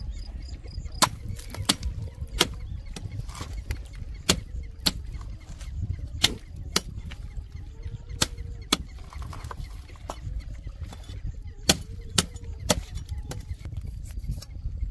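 A knife chopping through a rohu fish: a series of sharp strikes, often in pairs about half a second apart, over a steady low rumble.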